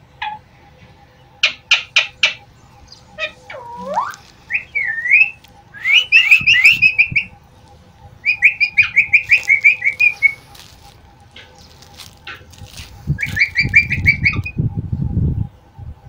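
Psittacula parakeets calling: a few sharp clicks, a rising whistle, then several runs of rapid chattering notes. A low rumble comes near the end.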